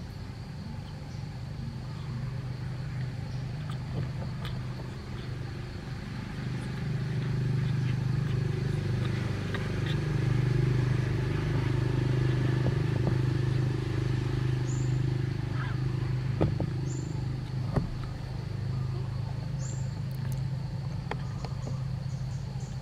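Low, steady motor hum that swells louder through the middle and eases off, under a faint steady high-pitched whine and a few light clicks.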